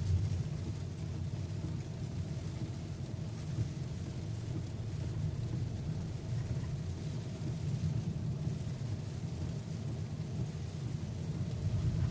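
Car driving on a road, heard from inside the cabin: a steady low rumble of road and engine noise.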